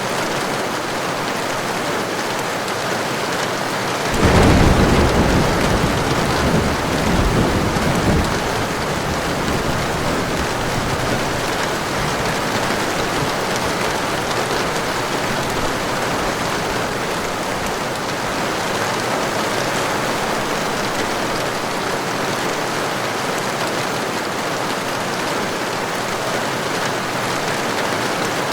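Heavy rain falling steadily, with a clap of thunder about four seconds in that rumbles on for about four seconds before the rain alone continues.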